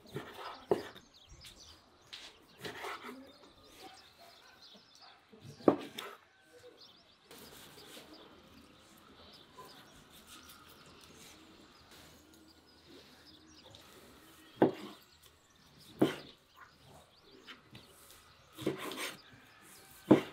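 Birds chirping in the background, with about seven sharp knocks or clatters at irregular intervals, the loudest about six seconds in and in the last third.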